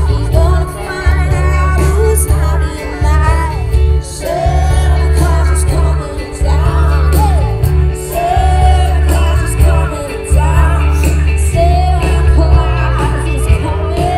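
Live band playing a song, loud: a woman singing lead over drums and cymbals, keyboard, guitars and a heavy bass line.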